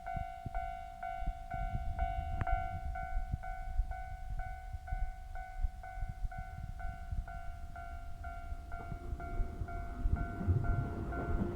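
Japanese level-crossing warning bell ringing steadily, about two dings a second. Near the end a Keihan electric train approaches, with a growing rumble and a slowly rising motor whine under the bell.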